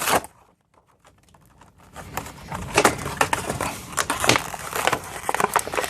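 Stiff plastic blister packaging being handled and flexed, giving irregular crackles and clicks that start about two seconds in.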